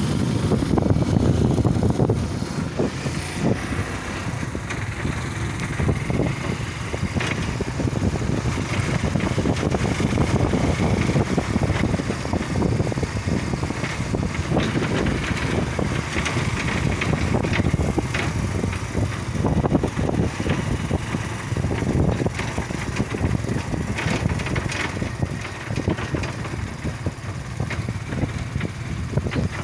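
Motorcycle engine running while the bike is ridden along a road, a steady rumble heard from on the motorcycle.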